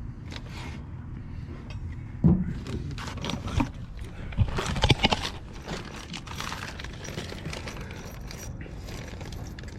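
Metal parts and hand tools being handled: a few sharp clinks and knocks, loudest about five seconds in, over a steady low rumble.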